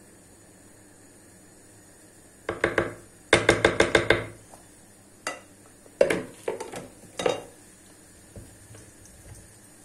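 Rectangular glass baking dish holding cake batter knocked in quick ringing taps: a few about two and a half seconds in, a fast run of about seven a second later, then scattered single taps and short groups that fade out.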